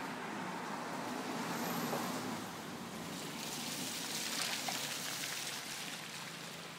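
Cars passing on a wet road, their tyres hissing on the wet surface, swelling as each one goes by, about two seconds in and again about four and a half seconds in, then fading.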